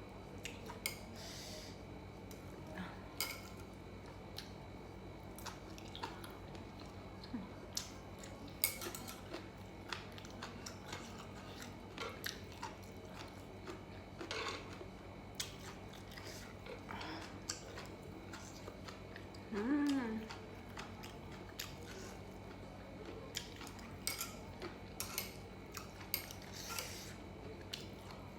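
Scattered clicks and clinks of eating utensils against dishes, with chewing, while grilled pork belly is eaten. A short hummed voice sound comes about twenty seconds in.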